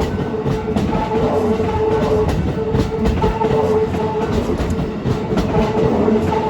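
Railway level-crossing warning bell ringing in a steady repeating tone while a Keikyu New 1000 series electric train passes over the crossing, its wheels clacking over the rail joints.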